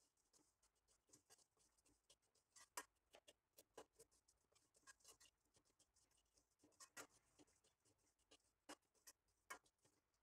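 Faint, irregular scraping and clicking of a slotted metal spoon against a kadai as lachha semai (vermicelli) is stirred while frying in oil, kept moving so it doesn't stick to the bottom.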